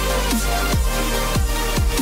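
Electronic dance music with a heavy bass line and a steady, driving beat.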